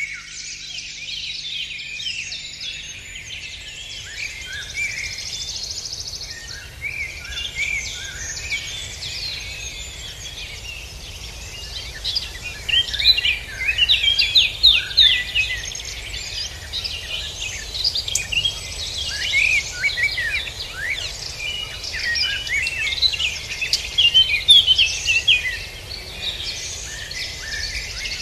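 Several songbirds singing and chirping over one another in a dense, continuous chorus of short calls, busiest about halfway through and again near the end, over a low steady rumble.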